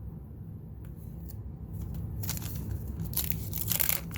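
Wax-paper wrapper of a trading-card pack crinkling as it is handled, in bursts starting about halfway through and loudest near the end.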